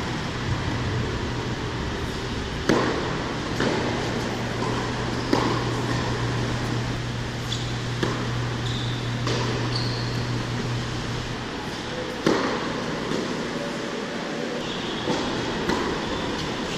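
Tennis ball bouncing and being struck by rackets on an indoor hard court: sharp single pops a second or several apart, the loudest about three seconds in, five seconds in and twelve seconds in. Under them runs a steady low hum from the hall's ventilation, which drops out for a few seconds past the middle.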